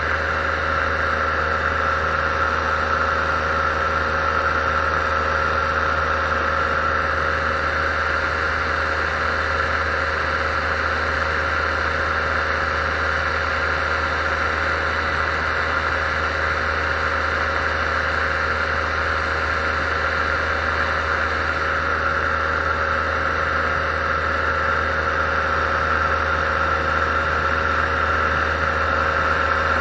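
Paramotor engine and propeller running steadily at cruise power in level flight: an even, unchanging drone with a high whine over a low hum.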